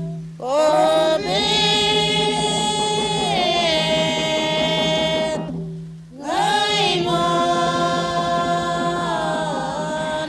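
Group of voices singing a Torres Strait Islander dance song: two long phrases of held notes, each opening with a rising slide, with a short break about six seconds in.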